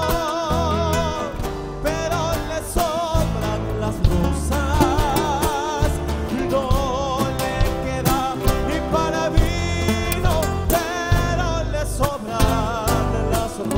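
Live band music: a male voice singing a melody with vibrato over strummed acoustic guitar and an electric bass line.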